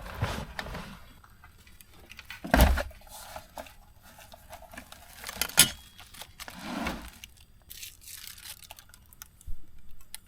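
Camp cooking gear and food packaging being handled: rustling and scraping, with a heavy knock about two and a half seconds in and a sharp click a few seconds later.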